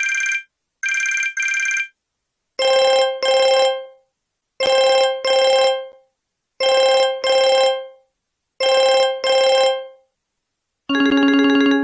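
Mobile phone ringtones played one after another. First comes a high trilling double ring. From about 2.5 s in, a different ringtone sounds four double rings about two seconds apart, and near the end a third, lower-pitched ringtone begins.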